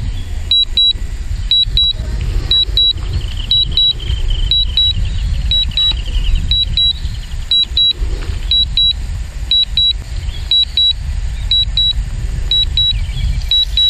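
DJI Mavic Pro controller sounding its alert as a pair of short high beeps about once a second, the warning during a low-battery automatic return to home. Underneath is a heavy low rumble of strong wind on the microphone.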